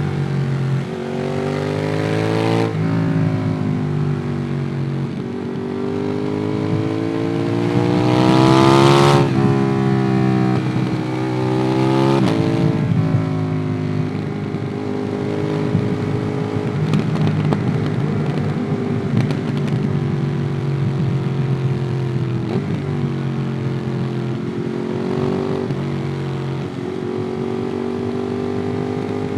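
Ducati Monster 821's L-twin engine through a QD Twin Gunshot exhaust, heard onboard while riding. The revs climb in several pulls and drop sharply at each gear change, the longest and loudest pull peaking about nine seconds in. The engine then runs at steadier, lower revs with small rises.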